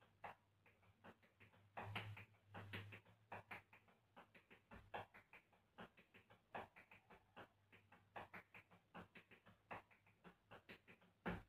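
Tap shoes striking a hard floor in hoofing footwork: quick, uneven rhythms of sharp taps, several a second, with the loudest strike near the end.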